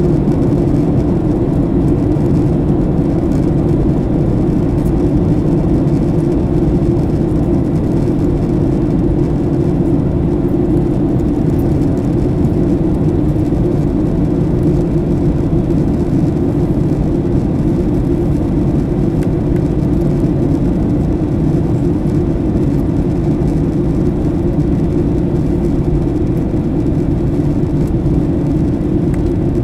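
Steady, unchanging low rumble of vehicle engine and air noise, with no change in pitch or level throughout.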